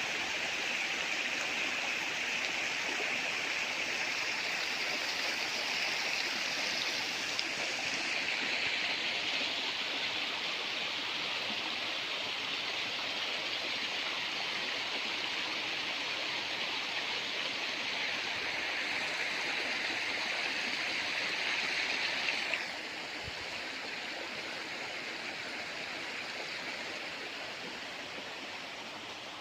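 Small river flowing steadily with a continuous rushing hiss. About three quarters of the way through, the higher part of the hiss cuts off suddenly and the flow sounds quieter.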